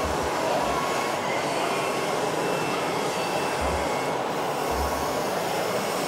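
Steady din of a busy indoor exhibition hall, with RC model machines at work and faint thin whining tones over it. A couple of low dull bumps come a little past halfway.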